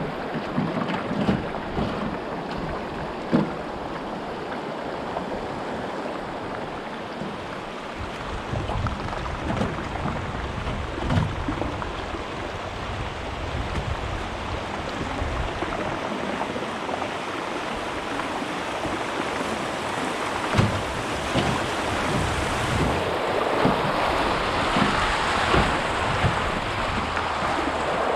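River water rushing over rapids, a steady hiss-like rush that grows louder near the end, with wind buffeting the microphone and a few low thumps.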